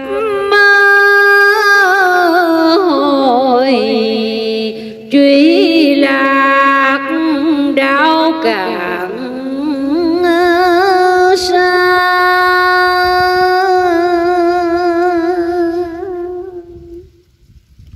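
A woman chanting Vietnamese verse unaccompanied, in long held notes with wide vibrato and slow gliding pitch. She breaks for breath about five seconds in, and the line trails off near the end.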